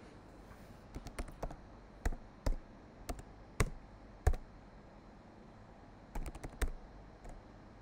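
Computer keyboard keystrokes, typed in irregular short runs: a scatter of clicks through the first half, a pause, then a quick run of four or five keystrokes near the end.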